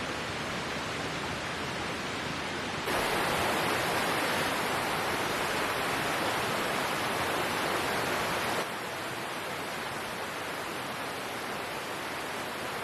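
Steady hiss of running water. It jumps abruptly louder about three seconds in and drops back just as abruptly about three seconds before the end.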